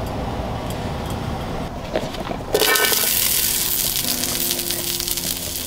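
Gas camping stove burning under an oiled carbon-steel frying pan; about halfway through, hot oil starts sizzling as chopped green onion is tipped into the pan. Background music comes in under the sizzle.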